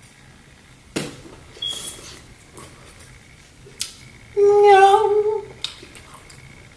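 A woman's high, drawn-out hum of enjoyment while eating, about a second long, a little past the middle. Before it come a few short clicks and smacking sounds of eating.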